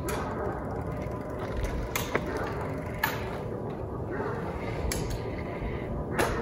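Homemade wooden electric go-kart moving slowly: a steady whine and mechanical rattle from its electric motor and drivetrain, broken by a few sharp clicks and knocks.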